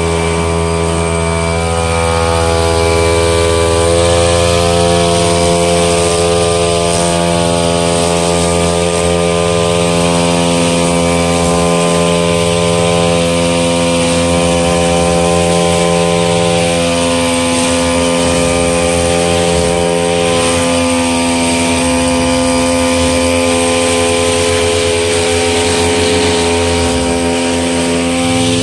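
Two-stroke engine of a Sumo backpack brush cutter running steadily under throttle while trimming grass, its pitch shifting a little around the middle.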